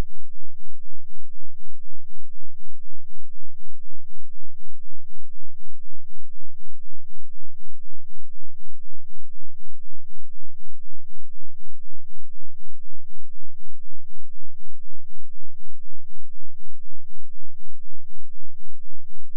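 A 2 Hz sine-wave bass test tone: a deep, loud low rumble that pulses evenly a few times a second, with no change.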